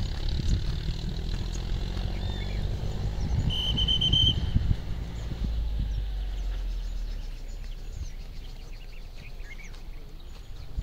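Outdoor ambience: a low rumble, loudest in the first half and fading after about six seconds, with a few scattered bird chirps and a short high tone about four seconds in.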